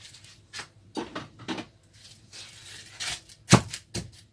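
Light taps and scrapes of ingredients being tipped into a mortar, then, about three and a half seconds in, a pestle starts pounding them with a few heavy thumps.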